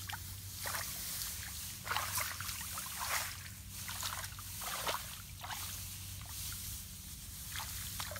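Shallow water splashing and sloshing in short, irregular bursts about every second, from hands working in a water-filled fishing hole.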